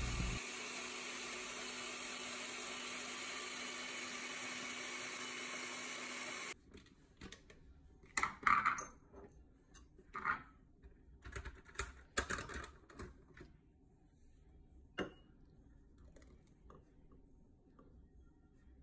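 Oster countertop blender running with a steady whirr, cutting off sharply about six seconds in. Then scattered light clicks and knocks as the glass blender jar and other kitchen items are handled.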